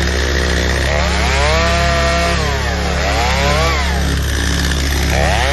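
Stihl MS 250 two-stroke chainsaw limbing a fallen tree. It revs up to full throttle about a second in, holds, and drops back. It revs up again and falls back toward idle a little before the end.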